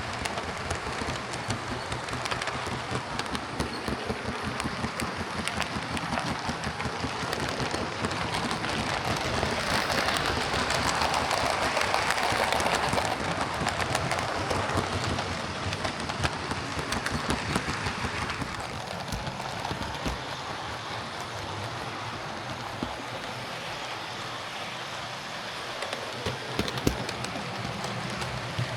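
OO gauge model trains running on layout track: a steady rumble of wheels over rail with many fast clicks, growing louder about ten seconds in, as if passing close, and easing off later.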